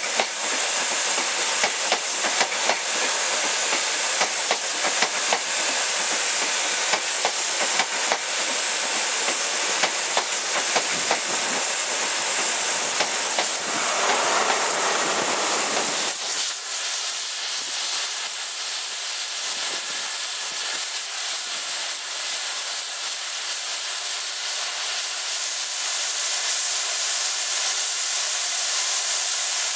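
A CrossCountry diesel train running past close by until about halfway through, over a steady loud hiss of escaping steam. Once the train has gone, the steam hiss from the A1 Pacific steam locomotive 60163 Tornado carries on alone.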